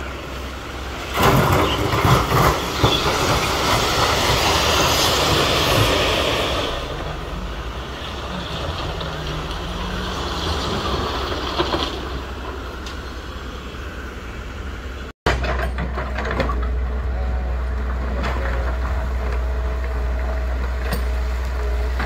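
Diesel site machinery running: a tipper truck dumping a load of dark gravel, with a rattling rush of stones sliding out of the raised bed for the first several seconds, then a Kato excavator's diesel engine running steadily.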